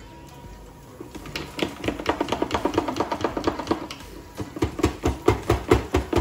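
Background music with a quick run of plucked notes starting about a second in. A steady bass beat joins about halfway through.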